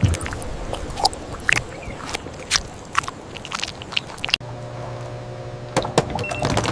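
Irregular sharp crunching clicks. About four and a half seconds in, the sound cuts abruptly and a steady low hum comes in under further clicks.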